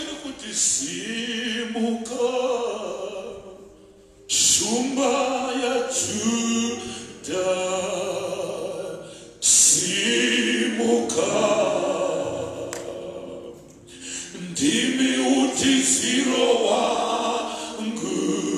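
A choir singing without instruments, in phrases of a few seconds with short breaks between them.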